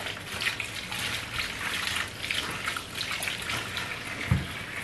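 Water running from a kitchen tap into a stainless steel sink as plantains are scrubbed and rinsed by hand, with irregular splashing and a soft thump near the end.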